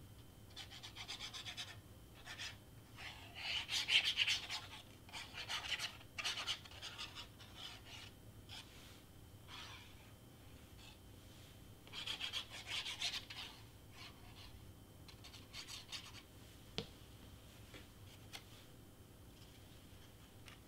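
Cardstock rubbing and scratching in irregular spells as a craft glue bottle's tip is drawn across it and the paper pieces are handled and pressed flat, with one short sharp click late on.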